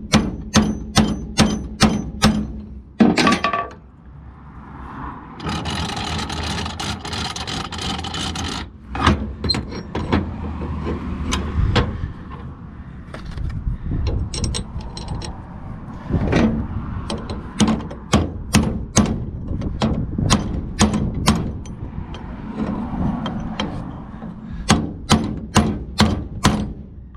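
Hammer blows on a brass punch, driving new lug studs into a wheel hub: runs of sharp, evenly spaced metal strikes, about two to three a second, with a few seconds of steady noise partway through.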